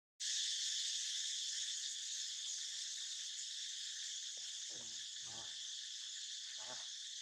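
Steady high-pitched chorus of insects trilling without a break. A few faint, brief voice-like sounds come in the second half.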